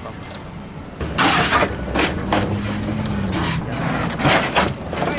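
Car engine revving in several loud bursts, starting about a second in, with the exhaust noise rising and falling over a steady low running note.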